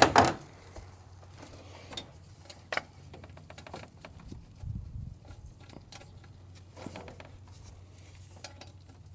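Scattered light metal clicks and knocks of a socket and extension being worked onto a turbo mounting bolt, with one louder knock at the very start, over a faint steady hum.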